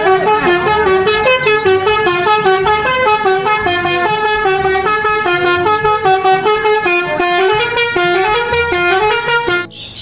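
Telolet bus horn: a multi-tone horn playing a fast tune of short stepped notes, which stops abruptly near the end.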